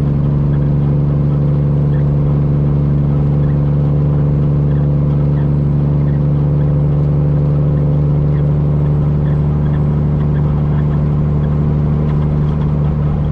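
Peterbilt semi truck's straight-piped Cummins diesel running steadily on the road: a low, even drone that holds one pitch.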